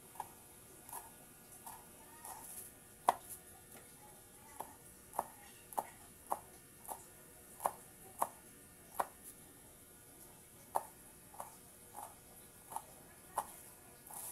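Coconut milk heating in a wok over a gas flame, coming up to the boil: thick bubbles bursting as short, irregular pops, about one or two a second.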